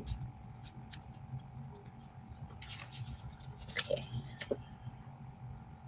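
Paperback booklet being handled and its pages turned: a few soft rustles and taps, over a steady background hum.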